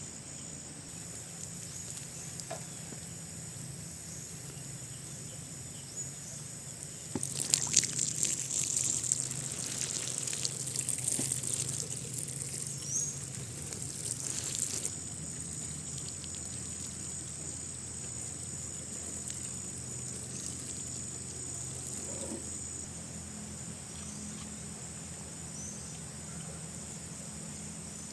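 Water pouring and splashing for about eight seconds, starting about a quarter of the way in and then stopping. Behind it runs a steady high-pitched insect drone.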